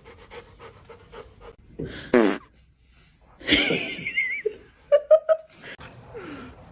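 Short bursts of a person laughing, the loudest being three quick bursts about five seconds in.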